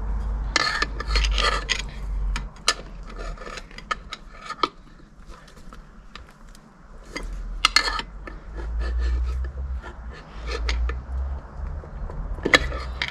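Hand tools scraping, rubbing and clinking against the metal parts of a pit bike while a fiddly part is worked into place: scattered sharp clicks and short scrapes, the busiest at the start, with louder scrapes near 8 seconds and near the end.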